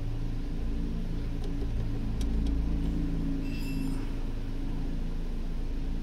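Nissan Grand Livina engine idling, a steady low hum, with a few faint clicks and a brief high-pitched tone a little past the middle.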